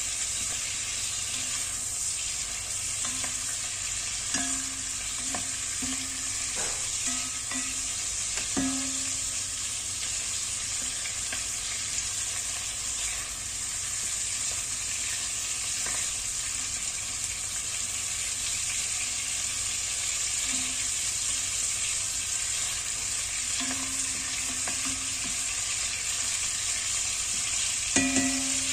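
Chicken pieces sizzling steadily as they brown in butter and oil in an enamelled cast-iron pot. A wooden spoon stirs them, knocking against the pot a few times.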